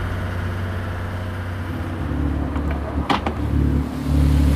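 A lobster boat's engine running steadily underway, a low hum that grows louder about two seconds in and again near the end. A short knock or clatter sounds about three seconds in.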